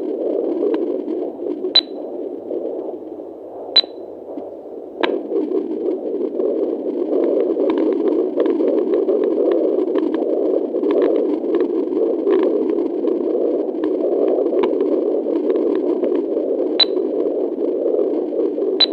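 Fetal heartbeat at 10 weeks 4 days picked up by a Doppler ultrasound, heard as a pulsing whoosh in steady static. It grows louder and steadier about five seconds in, and a few sharp clicks cut through now and then.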